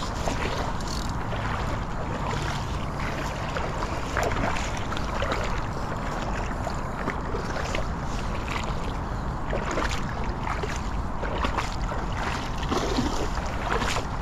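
Hooked chum salmon splashing in the river close to the bank in irregular bursts, over a steady rumble of wind on the microphone.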